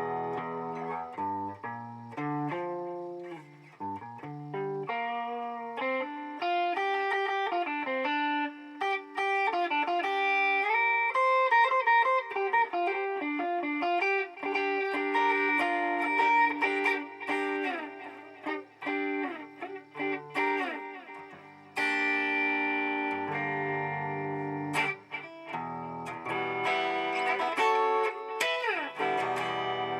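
Electric guitar played through a BOSS DD-8 digital delay pedal in Warp mode: picked notes whose echoes pile up into sustained, overlapping washes of sound, with a falling pitch slide near the end.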